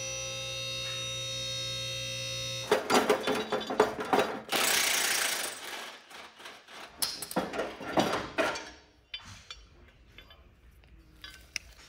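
Electric pump motor of a two-post car lift running with a steady hum, cutting off sharply about two and a half seconds in. Clacks follow, then a loud hissing burst lasting about a second and a half, then scattered metallic knocks of parts being handled that die away.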